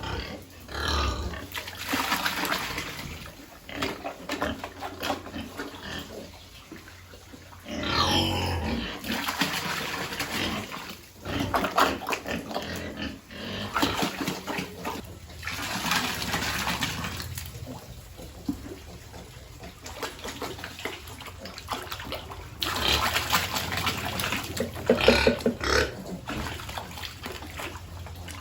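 Piglets grunting and squealing in bursts every few seconds.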